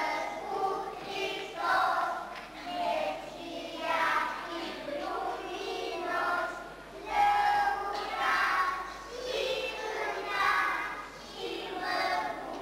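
A group of children singing a song together in unison, phrase by phrase with short breaks between lines.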